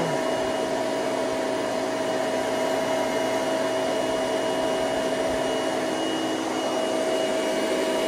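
Hoover Celebrity QS canister vacuum running steadily while vacuuming carpet: an even rush of air with a steady motor whine.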